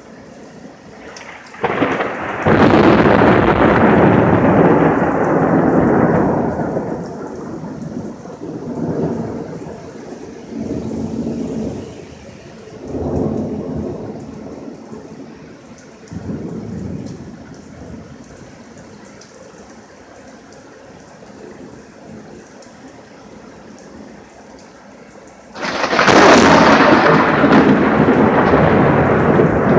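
Thunder from close lightning over steady rain. A loud clap about two seconds in rumbles on in several swells, fading over some fifteen seconds. A second loud clap breaks near the end.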